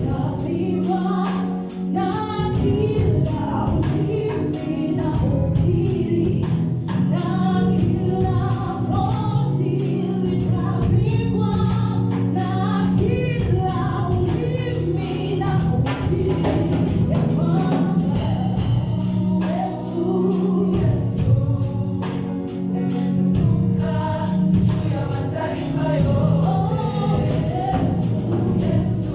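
Gospel worship song: a group of singers singing together over a steady bass and rhythmic percussion.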